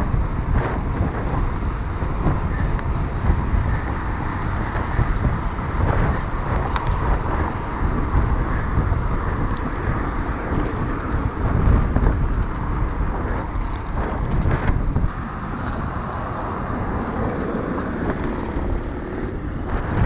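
Steady riding noise from a mountain bike on a city road: wind rumbling on the handlebar camera's microphone and tyre noise, with car traffic going by.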